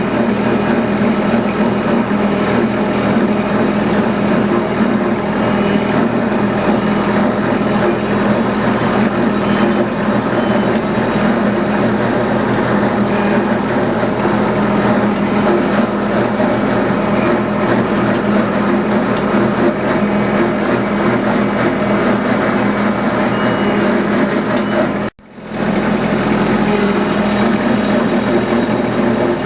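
A small engine running steadily at a constant speed. It cuts out for a moment about 25 seconds in and then carries on.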